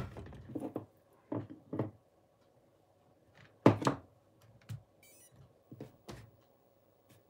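A handful of light knocks and clicks from an RC radio transmitter and small RC car being handled on a workbench, the sharpest about three and a half seconds in.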